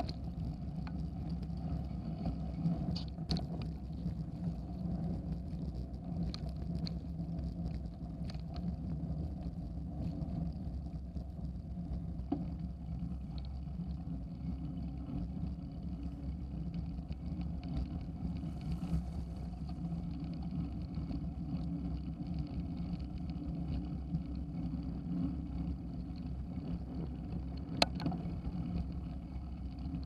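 Bicycle rolling over a packed dirt and gravel trail, heard through a handlebar-mounted camera: a steady rumble of tyres and bar vibration, with a few sharp clicks and rattles, the loudest near the end.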